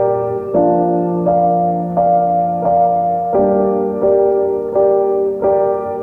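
Background music: a piano or electric piano playing slow sustained chords, a new chord about every 0.7 seconds.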